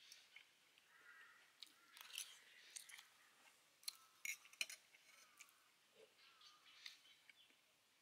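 Faint eating sounds: a metal fork and spoon clicking against a bowl several times, loudest about halfway through, with chewing of crunchy fried fish and birds calling in the background.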